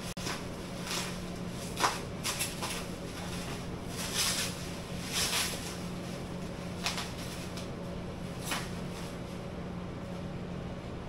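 Paper and packaging being handled, with short scattered rustles and crinkles over a steady low hum.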